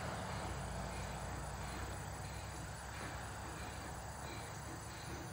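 Quiet rural ambience: a steady high insect drone, such as late-summer crickets, over a low steady rumble.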